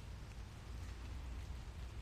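Faint, steady hiss of light rain, with a low rumble beneath it.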